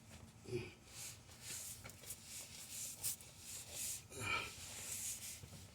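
Faint, intermittent rustling and scuffing of hand work, with two short breath-like vocal sounds about half a second in and about four seconds in.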